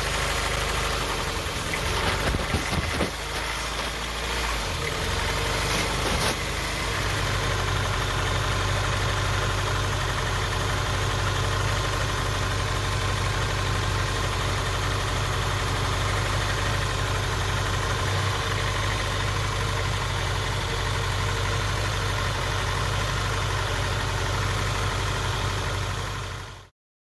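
1991 Honda Prelude Si's four-cylinder engine idling rough with a misfire, a 'brapping' idle. A few irregular knocks sound in the first several seconds, then the idle runs steady until it cuts off suddenly near the end.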